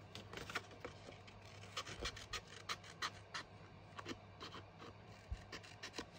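Small scissors snipping cardstock to round off its corners: a run of short, irregular cuts, several a second.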